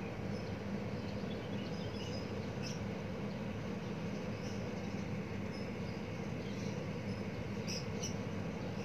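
Battered banana slices deep-frying in hot oil in a wok: a steady sizzle and bubbling with small crackles and pops, a couple of sharper pops near the end, over a low steady hum.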